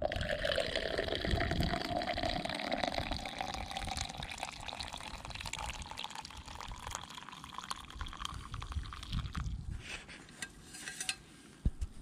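Hot liquid pouring from a flask into a mug, a steady stream with a tone that rises slowly as the mug fills. The pour trails off about ten seconds in, and there is a small click near the end.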